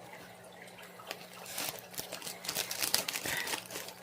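Crinkling and rustling of orchid packaging as it is handled: scattered small crackles at first, busier from about a second and a half in.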